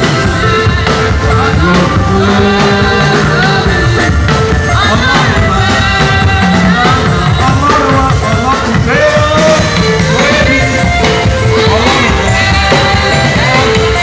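Gospel praise music: voices singing over a drum kit and hand percussion.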